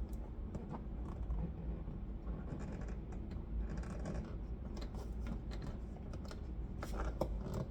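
Scratching and a run of small, irregular clicks from hands working a car door's plastic trim panel and its clips.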